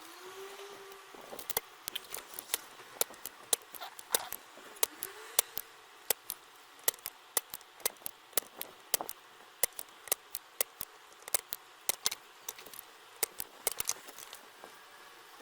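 Irregular sharp clicks and taps, about two or three a second, from small metal tools and parts being handled at an electronics workbench.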